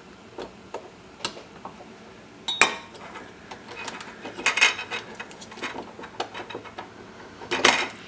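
Small clicks, taps and clinks of a circuit board and metal helping-hands clamp being handled while a capacitor is desoldered, with a few louder knocks about two and a half, four and a half and seven and a half seconds in.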